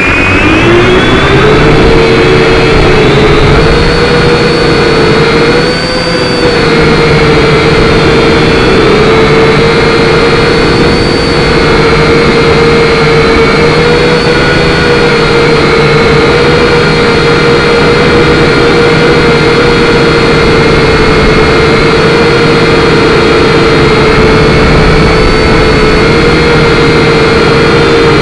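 Syma X5C-1 quadcopter's motors and propellers whining loudly and close, as heard by its onboard camera. The pitch rises over the first second as the motors spin up for takeoff, then holds steady over a rushing hiss, wavering briefly about six seconds in.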